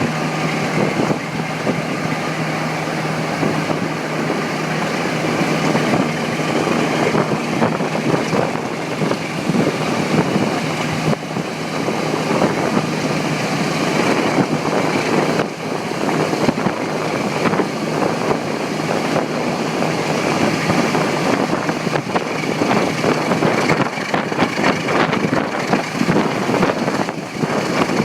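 Diesel locomotive engine running steadily.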